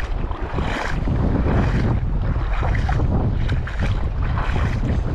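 Wind buffeting the microphone in a steady low rumble, over water sloshing and splashing that surges about once a second, as of someone wading through shallow water over a reef flat.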